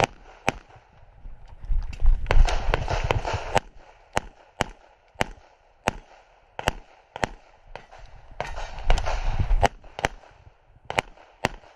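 A long string of pistol shots, about a dozen and a half sharp cracks, many fired in quick pairs, as the shooter engages targets on a practical shooting stage. Two stretches of loud rumbling noise fill the gaps between strings of shots.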